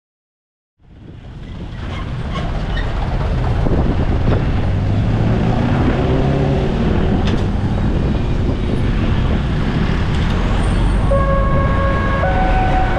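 Road traffic crossing a railway level crossing: truck, car and motorcycle engines running and tyres rolling over the rails, fading in about a second in. About eleven seconds in, the level crossing's electronic warning signal starts sounding, steady tones at a few pitches alternating in a repeating pattern.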